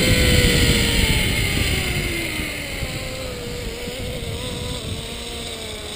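Zipline trolley pulleys running along the steel cable: a whining tone that slowly falls in pitch over a rush of wind, both fading as the rider slows toward the landing platform.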